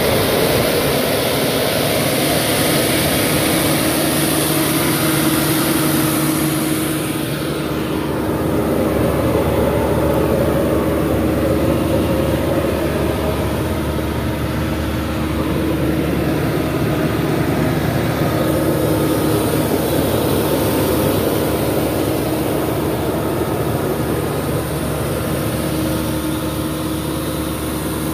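Caterpillar 307D compact excavator's diesel engine idling steadily at an even pitch. It is brighter at first and turns duller about seven seconds in.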